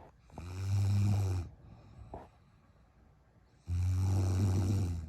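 A sleeping woman snoring: two loud, low-pitched snores about three seconds apart, each lasting a little over a second.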